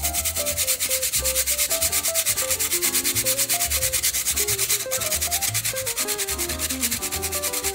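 A frozen lemon half grated, peel and all, on a handheld flat grater: quick, even rasping strokes, about five or six a second.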